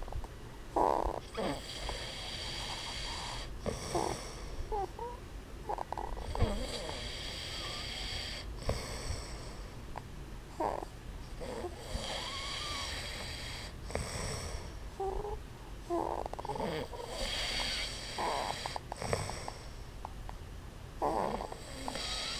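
A man and a baby snoring together in their sleep: long hissy snoring breaths about every five seconds, with short snorts and squeaky sounds in between.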